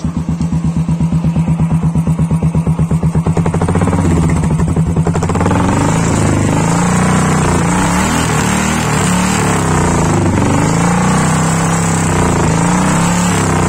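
Royal Enfield Classic 350 single-cylinder engine running through an aftermarket shark-style exhaust, first at idle with an even, rapid thump. About four seconds in it is revved up and stays at higher revs, rising and falling, until the end.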